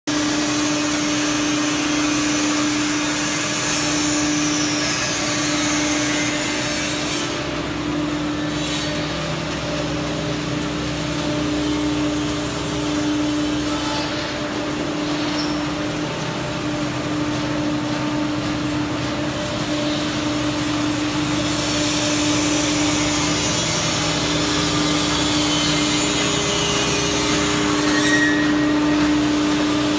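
Machinery of an oat roasting and flaking line running: electric motors and conveyors give a steady hum with one constant tone, under a broad even hiss.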